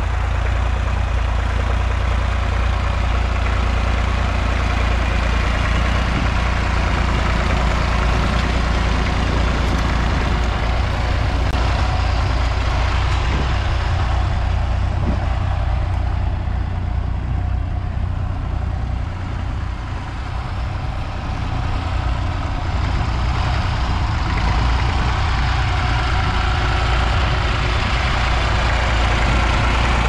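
Vintage Fordson tractor engine running steadily under load while pulling a plough, with a brief dip in level about two-thirds of the way through.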